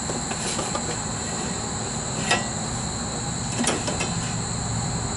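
Light clicks and rustling from handling electrical wire, with two sharper clicks about two and a half and three and a half seconds in, over a steady low hum and a high steady whine.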